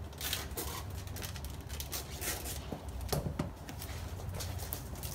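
Scissors cutting a 6 mm closed-cell foam sheet, then the sheet and its peel-off plastic backing being handled, in short irregular scrapes, snips and crackles. A low steady hum runs underneath.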